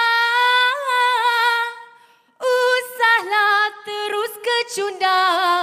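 A woman singing solo in Malay with no instruments heard: a long held note with vibrato fades out about two seconds in, and after a short break she sings on in quick phrases.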